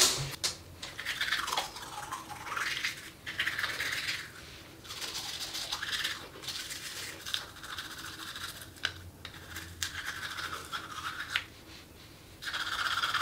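Toothbrush scrubbing teeth: quick back-and-forth brushing strokes, with a few brief pauses.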